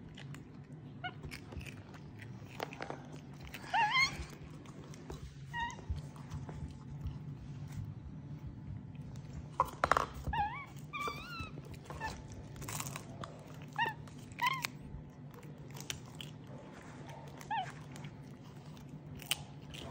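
Capuchin monkey making short, high squeaky chirps with quick up-and-down pitch bends, some single and some in quick runs of two or three.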